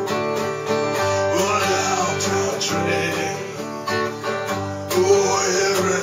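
Acoustic guitar strummed steadily while a man sings over it, his held note wobbling in pitch.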